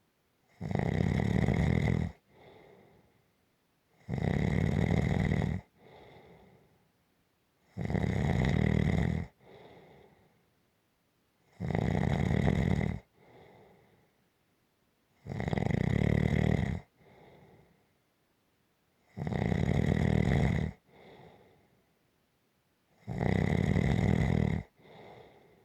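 Rhythmic snoring: a loud snore about every four seconds, each lasting about a second and a half and followed by a softer, shorter breath.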